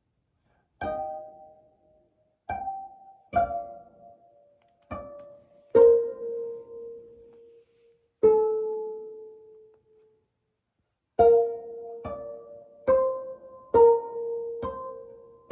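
Piano played one note at a time: a slow, simple melody of about a dozen single notes, each struck and left to ring away, with a long pause in the middle.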